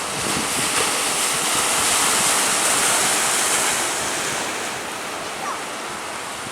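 Sea surf breaking and rushing, building for the first few seconds and then easing off, with wind in the background.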